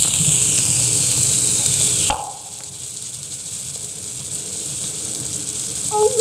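Steady surface hiss of an Edison Kinetophone phonograph cylinder recording. It is loud for the first two seconds, with a faint falling whistle, then drops sharply after a click about two seconds in. A woman's voice begins near the end.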